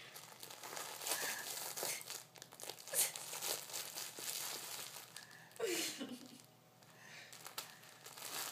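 Crinkly material rustling and crackling in irregular bursts, with one short falling voice-like sound about two-thirds of the way through.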